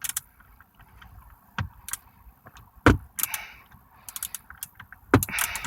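Irregular light clicks and knocks from hand tools and plastic steering-column trim being handled while Torx screws are worked loose.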